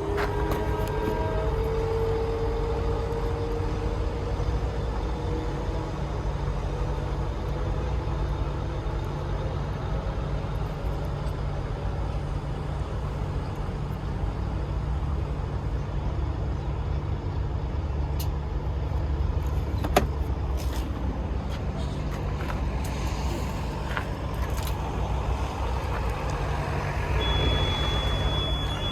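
Heavy truck's diesel engine running steadily with a low, even hum. A single sharp click sounds about twenty seconds in.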